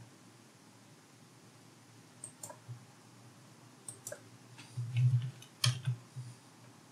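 Scattered clicks of a computer keyboard and mouse, a handful of separate strokes beginning about two seconds in, the loudest a dull low knock about five seconds in.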